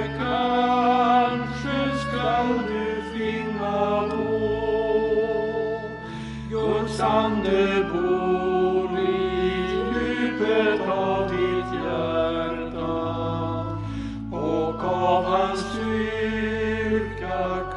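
A hymn sung by voices over sustained low accompaniment, in phrases with short breaths between them.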